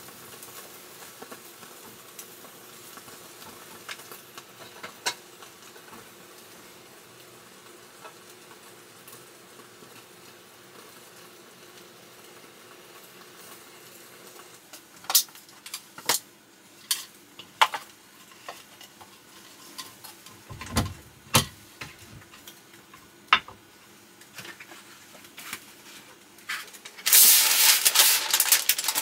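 Food sizzling faintly in a pan. About halfway through come a series of sharp clicks and knocks of a utensil against cookware, and near the end a loud scraping, rustling noise.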